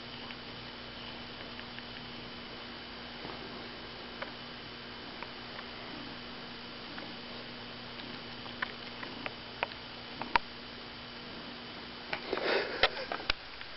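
A cat being scratched: scattered small clicks and faint rustles over a steady electrical hum, with a brief burst of rustling near the end.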